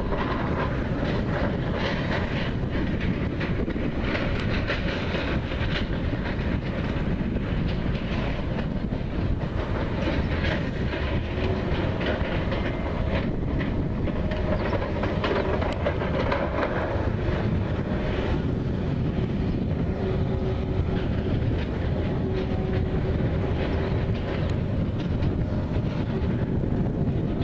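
Diesel engines of Bundeswehr M3 amphibious bridging vehicles running, a steady rumble as the vehicles drive down into the river and float off. A faint steady tone joins in about two-thirds of the way through.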